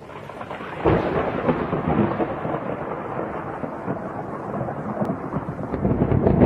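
Thunderstorm: thunder rumbling over heavy rain. The thunder breaks in about a second in and swells again near the end.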